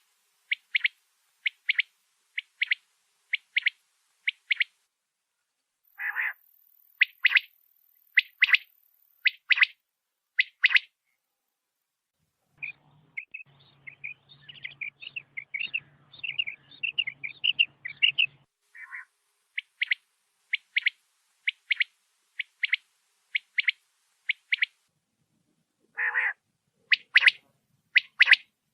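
Quail calling: bouts of short, sharp notes repeated about twice a second, each bout opening with a lower, longer note, with short pauses between bouts. In the middle comes a quicker run of chattering notes over a faint low hum.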